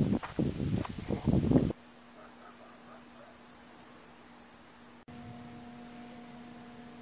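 Crickets chirring steadily at night under a loud, rough rumbling noise that cuts off abruptly under two seconds in. After a cut about five seconds in, the crickets stop and only a faint steady hum remains.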